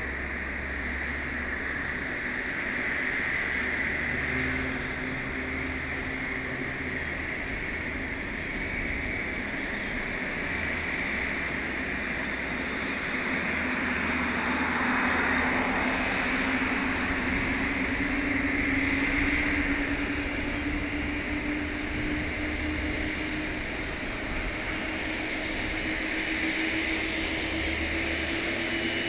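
Boeing 787-9 jet engines running on the ground after pushback: a steady rushing hiss with a high whine, and a lower tone that slowly rises in pitch from about halfway through.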